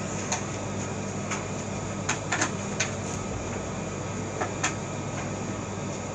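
Small kitchen knife cutting into a pumpkin's rind, heard as a few scattered short clicks and scrapes over a steady low hum.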